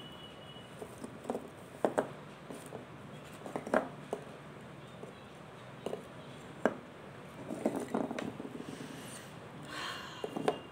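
Crumbly mothballs crushed and pressed under fingertips: irregular crisp crunches and crackles, with a quicker run of crunches a little past the middle and a short scraping rustle near the end.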